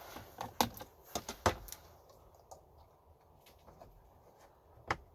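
Hard plastic glove box parts clicking and knocking as they are hooked and snapped into the dash: a quick run of sharp clicks in the first second and a half, then one more click near the end.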